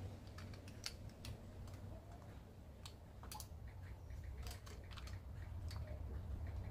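Small, irregular plastic clicks and taps as fingers fit parts into an opened hair clipper's housing while trying to seat a replacement power switch, over a low steady hum.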